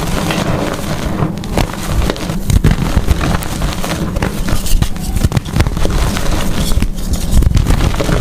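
Blocks of gym chalk being crushed and crumbled close to the microphone: a dense, unbroken run of crunching and crackling with sharp little snaps throughout.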